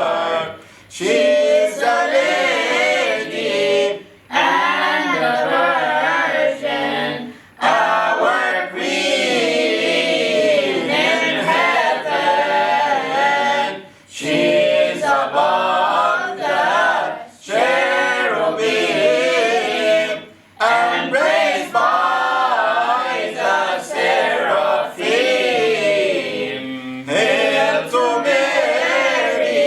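A mixed group of men's, women's and children's voices singing a Coptic Orthodox hymn to the Virgin Mary a cappella, in phrases with short breath pauses between them.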